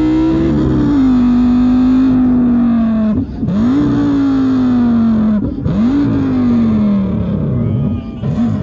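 A man imitating a car's engine and exhaust with his voice into a handheld microphone. After one held note come long engine-like tones, each starting higher and sliding slowly down in pitch, with short breaks between them, and a quick wavering rev near the end.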